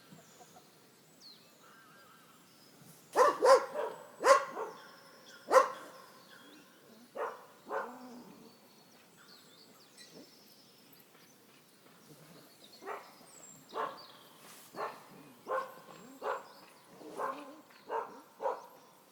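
A dog barking: a burst of four loud barks a few seconds in, two more, then after a pause a steady series of barks about one a second toward the end.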